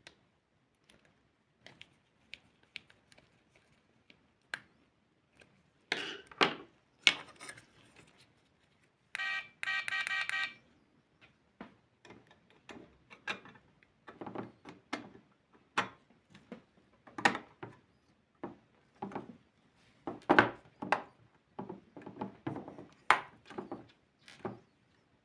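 Small clicks, taps and knocks of toy-car parts being handled and fitted, with one short steady buzzing tone lasting about a second and a half around nine seconds in.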